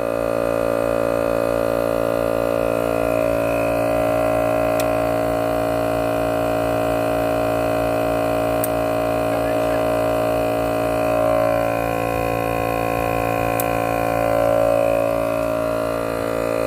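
Portable air compressor running steadily with a droning hum, inflating a van tyre that has just been plugged. It swells slightly twice near the end.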